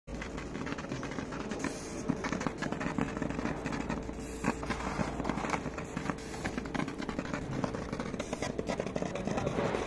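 100 W CO2 laser cutting machine running as it cuts card: a steady hum with a crackling, ticking texture and a short hiss every couple of seconds. The hum stops about eight seconds in.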